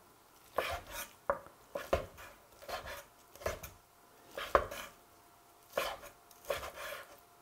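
Chef's knife dicing slightly frozen pork shoulder on a wooden cutting board: a series of separate knife strokes knocking on the board at an uneven pace, roughly one or two a second.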